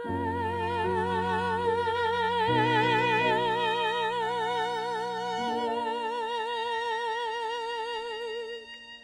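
Closing bars of a ballad for voice, violin and piano: a single long held note with steady vibrato over soft sustained piano chords that change twice, then the music fades away near the end.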